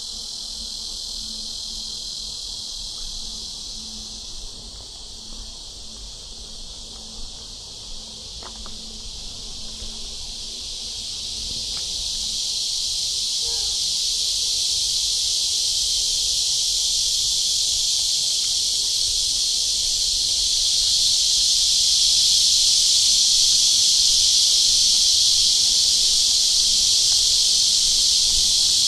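A chorus of cicadas buzzing in a dense, steady high-pitched drone that swells louder about halfway through and again later.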